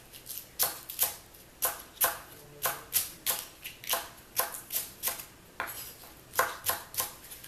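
Kitchen knife slicing green onions on a wooden cutting board: a steady series of knocks of the blade on the board, about three a second. The knife is not that sharp.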